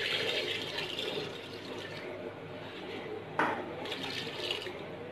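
Water pouring into a steel pressure cooker over beef pieces in yogurt and spice paste, a steady splashing fill that tapers off after the first couple of seconds. A brief knock about three and a half seconds in.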